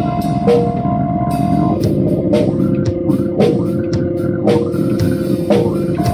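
Instrumental rock music: a drum kit with electric guitar and bass, sustained notes that change pitch about once a second, and a sharp accent hit on roughly each of them.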